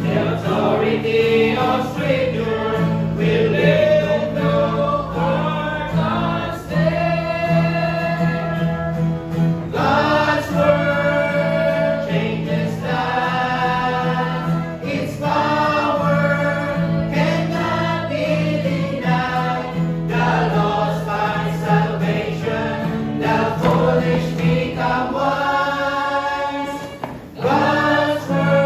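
Mixed choir of men's and women's voices singing a hymn, accompanied by acoustic guitar, with a brief pause between lines near the end.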